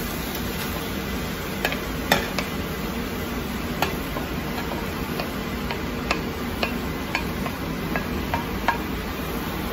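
Minced beef sizzling as it drops into hot oil and onions in a stainless steel pot. A wooden spatula scraping it off a plastic cutting board makes irregular sharp taps and clicks, the loudest about two seconds in.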